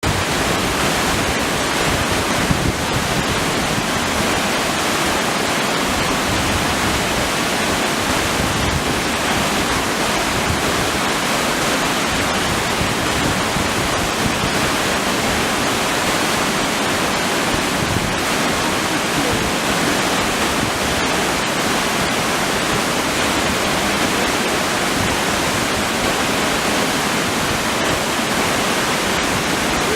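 Wide, high-volume waterfall roaring steadily, a dense unbroken rush of falling water.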